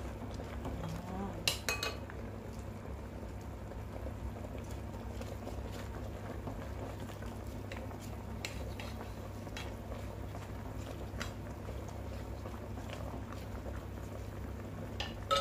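A wooden spatula pushing pechay leaves down into a metal pot of boiling broth, with sharp knocks of the spatula against the pot about a second and a half in and again near the end, over a steady low rumble.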